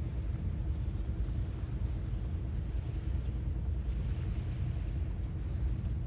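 Sea waves washing in softly a few times over a steady low rumble.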